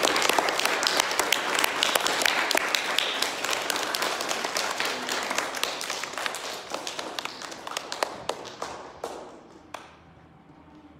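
Audience applauding, the clapping thinning out steadily and dying away near the end.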